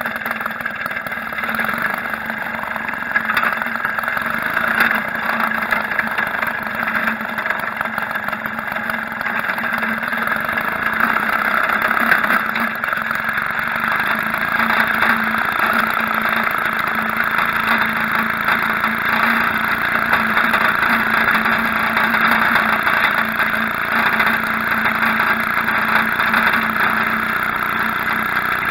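Maytag Model 72 twin-cylinder two-stroke washing-machine engine running steadily at an even pitch as it powers a homemade motor bicycle along. It is heard close up through a cheap action camera's microphone mounted beside the engine.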